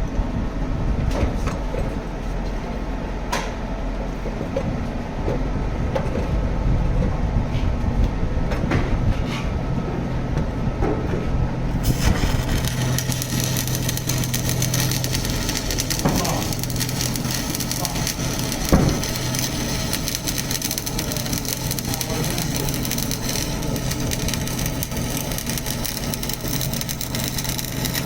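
Electric power tool running steadily with a low hum and scattered knocks; a little before halfway a harsh grinding hiss suddenly joins it and continues, with one sharp knock later on.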